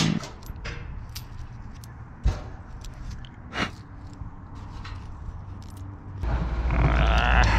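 Keys jangling with a few light clicks and knocks, then about six seconds in a vehicle engine starts and runs with a low, steady rumble.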